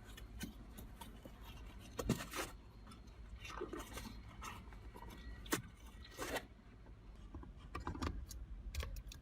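Handling noises from dash-cam installation work: scattered light clicks and scrapes, with a few sharper clicks along the way.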